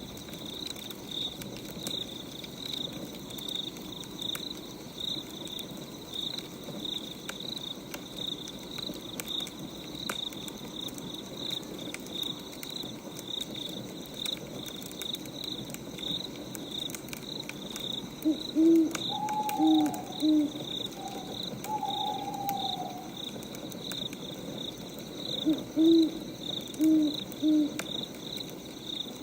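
Crickets chirping in a steady rapid pulse. An owl hoots in two groups of three low hoots, about 18 seconds in and again about 26 seconds in, with a few higher calls in between.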